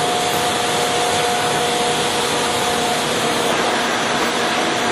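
Monarch 20CM heavy-duty engine lathe running, its spindle turning under its 25 HP main drive motor: a steady rushing whir with two steady whining tones over it.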